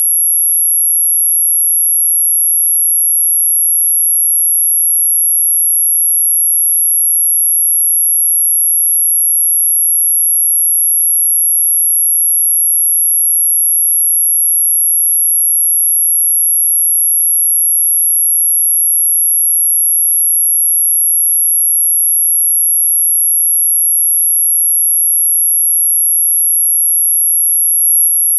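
A steady, very high-pitched electronic pure tone, an unchanging whine with no variation, played as an anti-mosquito repellent sound.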